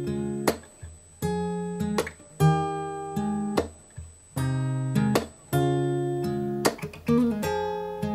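Background music: acoustic guitar chords struck about once or twice a second, each ringing out and fading before the next.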